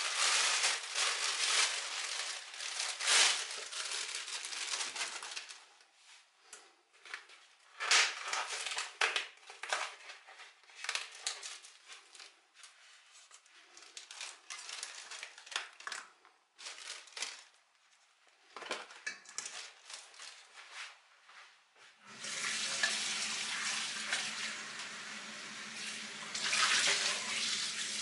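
Plastic bag crinkling and rustling in irregular bursts as a pork liver in a foam tray is handled and unwrapped. About 22 seconds in, a steady rush of running tap water starts and keeps going.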